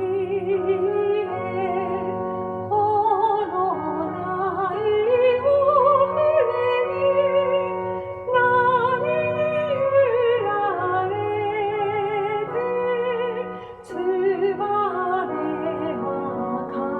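Music: a slow Japanese children's song (dōyō), a woman singing the melody with vibrato over sustained instrumental accompaniment, with a brief pause about fourteen seconds in.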